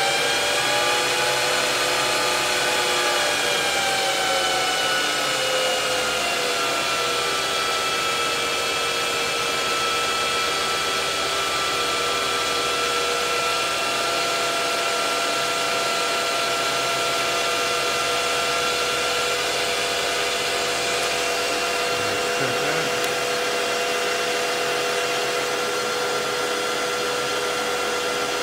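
Precision Matthews PM-1440GT lathe running under its Hitachi WJ200 VFD, a steady machine whine made of several tones. In the first few seconds the whine rises and then falls in pitch as the spindle speed is turned up and back down with the speed knob, then it holds steady.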